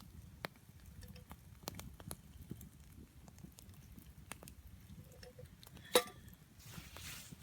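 Campfire crackling faintly, with irregular small pops and snaps. About six seconds in comes one sharper clink with a brief ring, followed by a short rustle.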